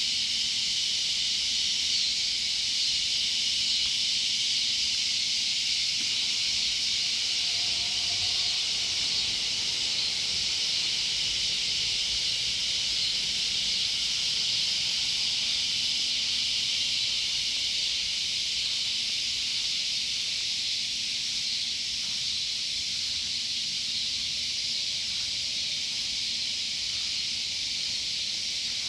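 Loud chorus of cicadas: a steady, high-pitched buzzing drone.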